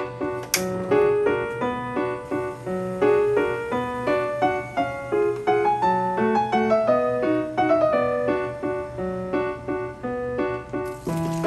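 Piano background music, a steady run of single notes, with one sharp click about half a second in.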